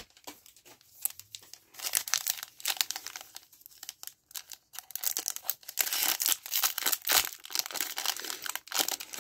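Foil wrapper of a 2022 Panini Mosaic football cello pack crinkling and tearing as it is opened by hand, a dense run of crackles that starts about two seconds in.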